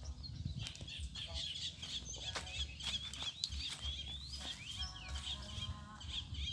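Birds chirping continuously in a dense, high twittering, with a chicken clucking.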